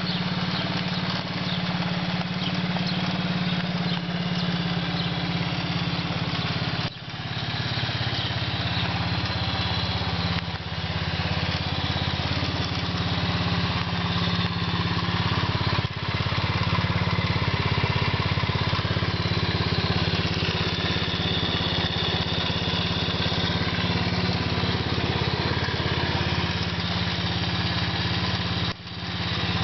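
125cc ATV single-cylinder engine idling steadily while warming up, with a few brief dips in level.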